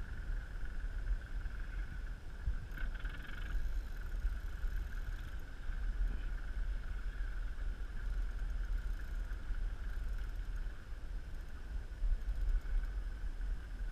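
Wind buffeting the microphone in a steady low rumble, over a steady high-pitched whine, with a brief brighter rush about three seconds in.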